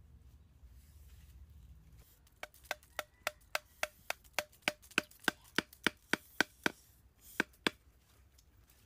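Wooden stake being driven into the ground with a wooden club: a run of about sixteen even knocks, roughly three a second, starting a couple of seconds in, then two more after a short pause.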